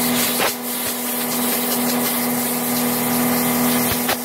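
Compressed-air blow gun hissing steadily through an oiled pleated motorcycle air filter, with a steady hum underneath. The air is driving the filter oil through all the pleats. The hiss dips briefly about half a second in and again near the end.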